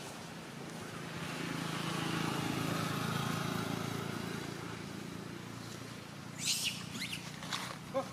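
A motor vehicle's engine at a distance swells up and slowly fades over several seconds. Near the end, a few short, sharp high-pitched animal calls sound in quick succession.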